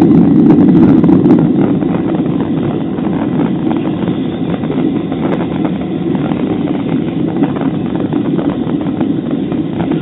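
Boeing 737 jet engines and airflow heard from inside the cabin over the wing as the airliner rolls along the runway: a loud, steady roar that eases slightly about a second and a half in.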